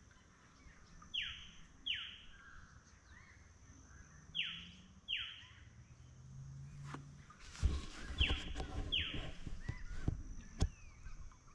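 A bird calling in pairs of quick, downward-sliding whistles, three pairs spaced a few seconds apart. In the second half, irregular knocks and rustling join in.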